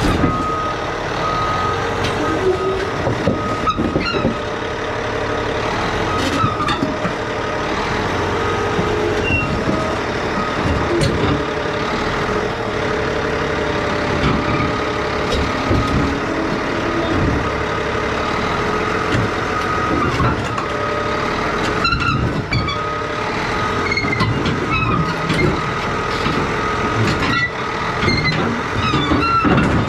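Heavy loading machinery working, its engine running, while a reversing alarm beeps steadily over it. Several sharp knocks are heard throughout, and a few come together about two-thirds of the way in and again near the end.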